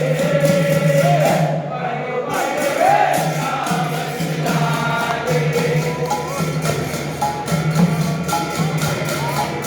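Group devotional singing (a bhajan) over a steady low drone, with an even percussion beat. The percussion pauses briefly about two seconds in.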